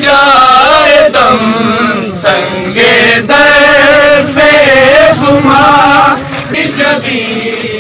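Male voice chanting a slow melodic line in phrases of about a second each.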